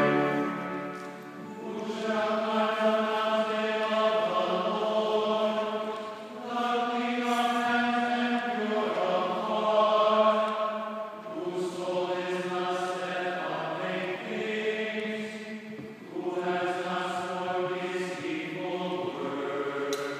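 A choir singing a slow chant in a large church: held notes in phrases a few seconds long, each followed by a short breath pause.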